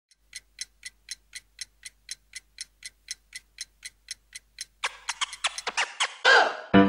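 Clock ticking, about four sharp ticks a second, then breaking into faster, denser clicking and a short whoosh near the end.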